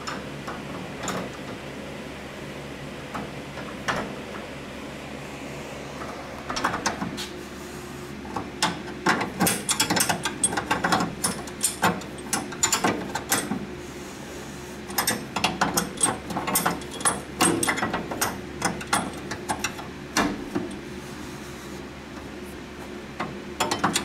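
Hand ratchet wrench clicking in repeated quick bursts as suspension bolts are run down, starting a few seconds in and stopping near the end. A steady low hum sits underneath.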